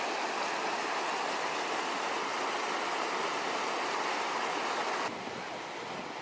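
Rushing water of a river cascade, a steady loud rush. It drops suddenly about five seconds in to a quieter, duller rush.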